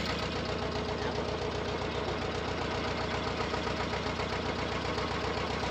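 Engine of a wooden motorboat running steadily at cruising speed, a rapid, even low pulsing beat.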